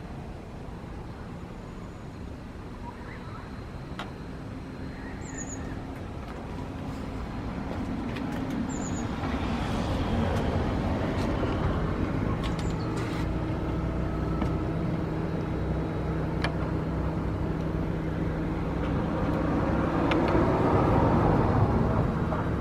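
A motor vehicle's engine running steadily, growing louder over the first ten seconds or so and loudest near the end.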